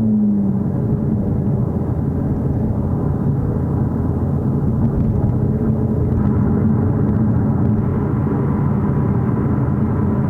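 Mercedes-AMG CLA 45 S on the move: a steady, even rumble of engine and road noise.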